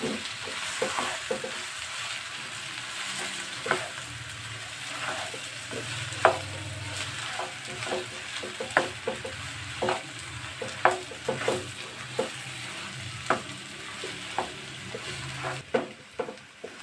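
Spatula stirring and mixing mashed boiled potatoes into frying onions in a wok: a steady sizzle with irregular knocks and scrapes of the spatula against the pan. The sizzle fades near the end.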